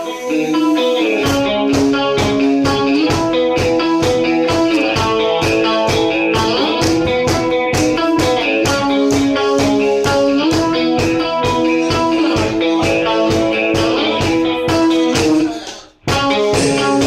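Live band playing blues-rock, with electric guitar holding and bending notes over a steady beat. The sound drops out briefly about a second before the end, then the music resumes.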